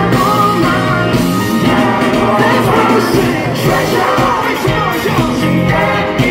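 A live band playing with a male lead singer singing, recorded from within the concert crowd.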